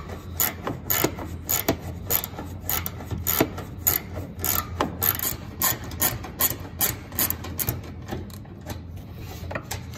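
Small hand ratchet and socket turning a bolt in short back-and-forth strokes, the pawl clicking at about three clicks a second.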